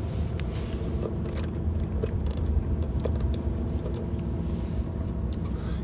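Car driving along, heard from inside the cabin: a steady low road-and-engine rumble with a few faint clicks.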